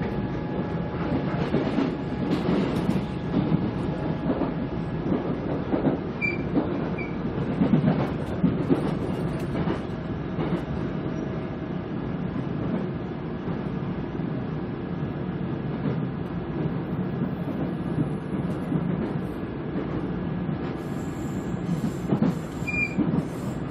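Seoul Line 1 electric train with Mitsubishi GTO-VVVF inverter drive, heard from inside a car as it picks up speed out of a station: a steady rumble of wheels on track with occasional clacks and a few brief high squeaks.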